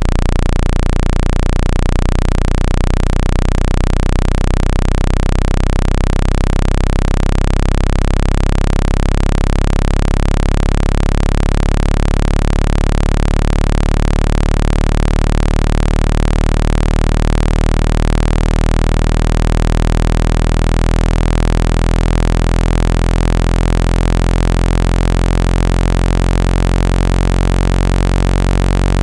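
Synthesized speaker-cleaning tone: a loud, steady low-pitched drone with many overtones over a constant hiss. It is made to vibrate a phone or laptop speaker hard enough to shake dust out of its grille.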